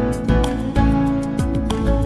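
Background music: a soft, steady tune with guitar, added over the end of the video.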